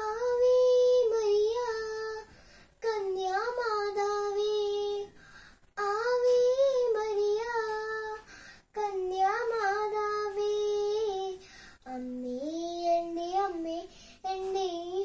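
A young girl singing solo and unaccompanied, in phrases of about two seconds with short breath pauses between them.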